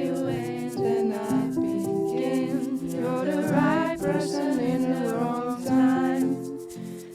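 Pop song passage with wordless sung vocals over held chords and a light, steady percussive beat.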